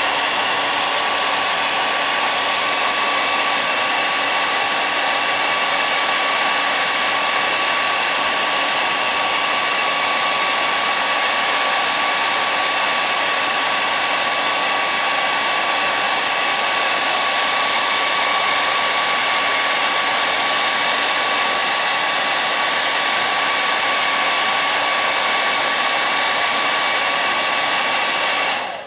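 Revlon hair dryer running on high: a steady rush of air with a steady motor whine, switched off near the end.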